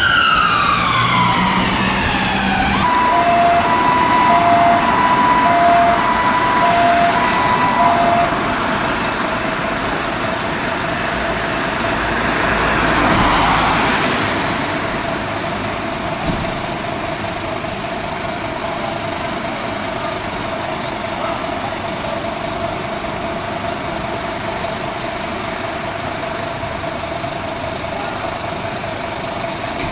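An ambulance siren winding down from a wail, then switching to an alternating two-note tone for about five seconds. After that a single steady tone holds over the even running of a Scania fire engine standing in its station bay, with a swell of noise partway through.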